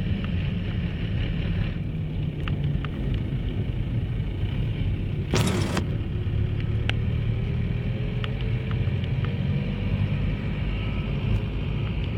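A jeepney's engine running steadily under way, with tyre and road noise heard from inside the cab and the engine note slowly rising in the middle. There is a brief loud burst of noise about five seconds in, and a few light rattling clicks.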